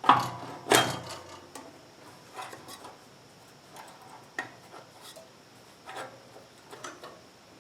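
Two sharp knocks, then scattered lighter clicks and rubbing, as engine parts are handled while a cable is routed over and under the fan shroud of a small engine.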